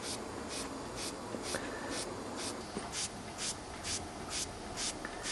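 Doll toy horizontal steam engine running smoothly on compressed air, its cylinder exhausting in short, evenly spaced hisses of about two puffs a second.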